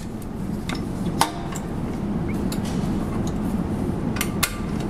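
Sharp metallic clicks and clinks as the tensioning-device wire is hooked onto the cocking lever of an M3M .50-calibre machine gun's mount: a few separate clicks, one about a second in ringing briefly, and two close together near the end, over a steady low background noise.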